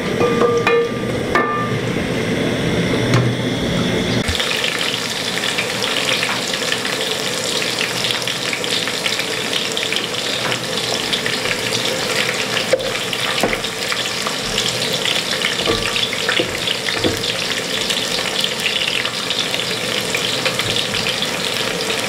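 Sliced onions sizzling as they fry in oil in an aluminium pot, stirred with a wooden cooking stick. The sizzle starts abruptly about four seconds in and then runs steadily.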